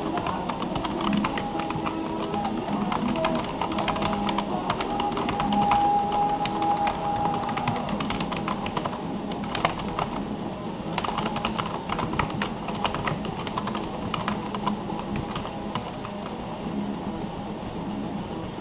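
Fast typing on a computer keyboard: a dense, uneven run of key clicks.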